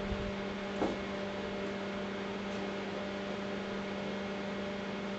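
Steady electrical hum from an arc welding machine left on at idle after the arc is broken. A faint knock comes about a second in.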